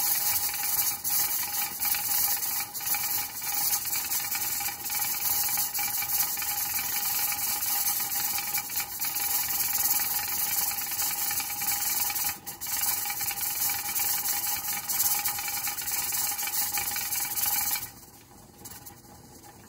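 Steam hissing steadily from the weighted pressure regulator of a Mirro 22-quart pressure canner held at 15 pounds pressure, with a few faint rattles from the weight. The hiss drops away sharply near the end.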